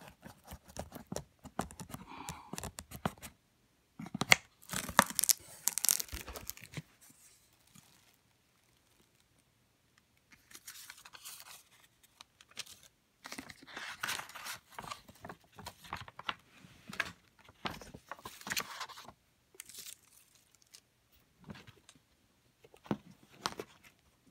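Paper tearing and rustling in several irregular bursts, loudest about four to seven seconds in: the paper warranty seal on a Cuban cigar box is being slit, then the box is opened and its paper leaflet handled.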